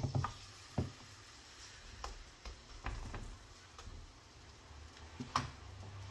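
Kitchen utensils knocking and scraping against a mixing bowl and a non-stick frying pan as vegetable fritter batter is spooned into the pan and spread out with tongs: a series of sharp clicks, loudest at the start and about five seconds in.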